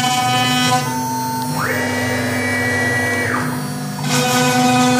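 CNC router running while milling a logo into a laminated board: a steady spindle whine over a hiss of cutting. Between about one and a half and three and a half seconds in, the cutting noise thins and a higher whine rises, holds, and falls, as the machine makes a quick move; the cutting sound returns near the end.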